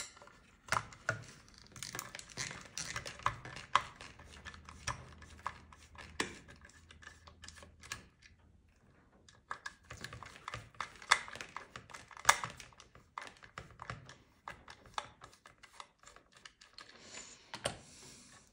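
Irregular small clicks, taps and rattles of a screwdriver and fingers working on the opened housing and internal parts of a Bang & Olufsen Beoplay S3 speaker while its tweeter is being removed. A short lull comes about eight seconds in.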